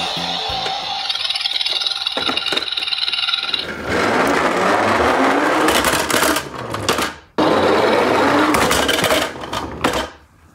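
Toy garbage truck rolling across a floor: a loud rattling whir of its plastic wheels and gears that rises in pitch. It breaks off for a moment a little past the middle, starts again, and dies away near the end.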